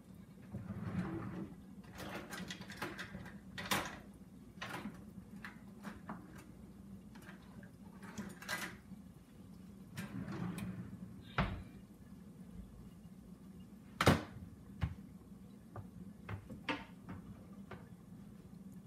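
Kitchen utensil drawer opened and rummaged through: repeated clinks and rattles of metal utensils, with a sharp knock about three-quarters of the way through. A low steady hum runs underneath.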